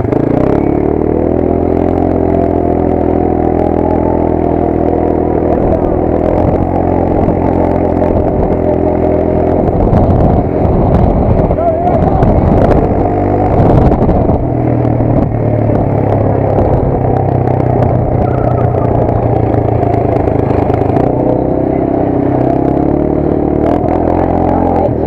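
Motorcycle engine running while riding along a dirt road, its pitch rising and falling with the throttle, with a rougher, louder stretch around the middle.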